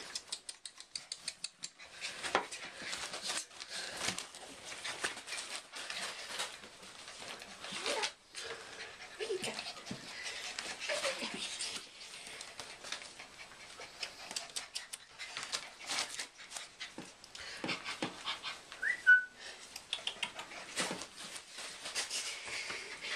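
Five-week-old English Bull Terrier puppies making small whimpers and squeaks while being held and stroked, among rustling and little clicks of handling. One short, sharp high squeak stands out late on.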